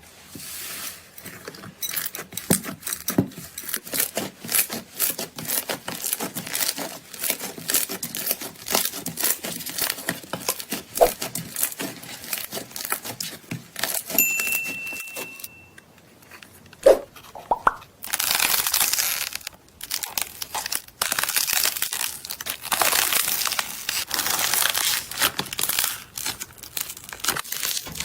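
Slime being squeezed, poked and stretched by hand, giving a dense run of small crackling pops and clicks, with stretches of fuller crinkly crackling in the second half.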